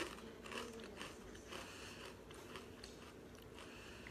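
Chewing a mouthful of crisp dill pickle wavy potato chip: faint, irregular crunches that thin out after about a second and a half.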